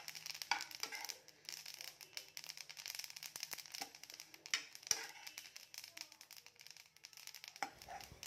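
White sesame seeds being stirred with a metal spoon in a metal pan as they dry-roast on a low flame: a continuous scraping rustle of the seeds sliding over the pan, with many small irregular clicks.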